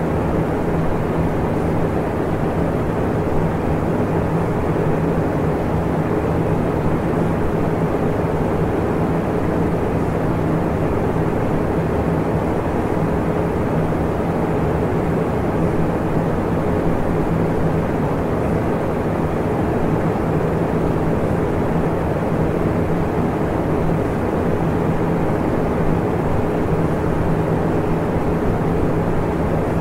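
Steady, even noise with no high end and a low hum running through it, unchanging throughout.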